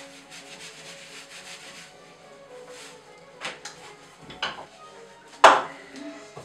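Hands rubbing and pressing flour into a sheet of pasta dough on a wooden counter, a quick run of soft rubbing strokes, followed by a few sharp knocks on the counter, the loudest about five and a half seconds in.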